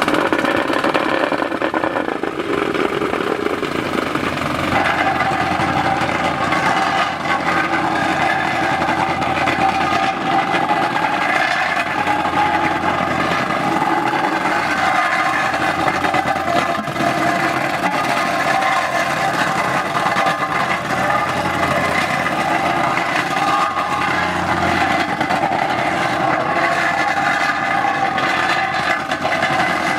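A motor-driven machine running steadily, with a constant whine over the noise of its running.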